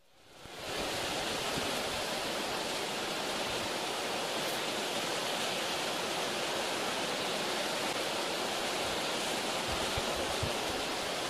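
Waterfall rushing steadily as it pours over a rock ledge into a pool, fading in over the first second.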